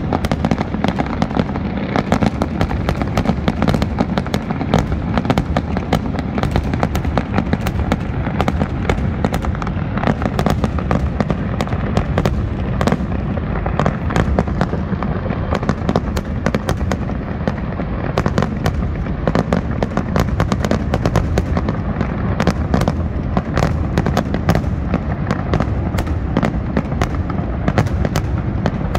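Fireworks display: a dense, continuous barrage of aerial shell bursts and crackling, many bangs a second with no let-up.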